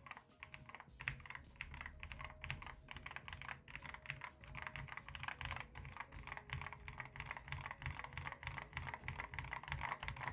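Typing on a mechanical keyboard fitted with unlubricated Outemu GTMX Black middle-profile linear switches and low-profile keycaps: a rapid, continuous clatter of keystrokes.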